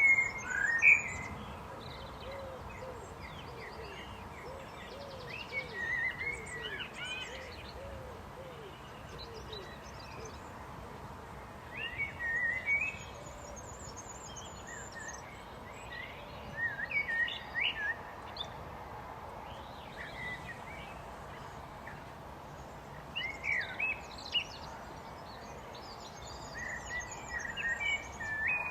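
Eurasian blackbird singing: short warbling phrases of gliding notes, each a second or two long, separated by pauses of several seconds, over a steady background hiss.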